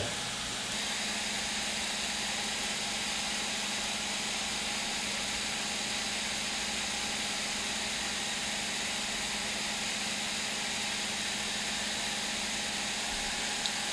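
Steady whir of a 3D printer's print-head cooling fans running, an even hiss with a constant hum under it.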